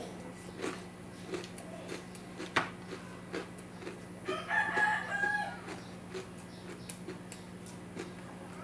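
A rooster crowing once, a little over a second long, about halfway through, over small repeated clicks of close-up chewing and a steady low hum.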